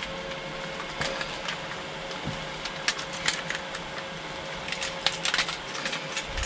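Handling noise: scattered light clicks and rustles, over a faint steady hum.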